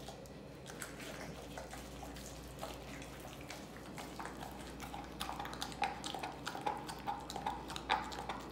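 American bully dog gnawing and licking a large raw turkey leg: irregular wet smacks and clicks of teeth and tongue on the meat and skin, coming thicker in the second half.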